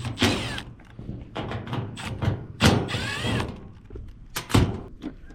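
Clunks and knocks of hands and tools working on the metal of a rooftop HVAC package unit, with two short grating passes of metal handling.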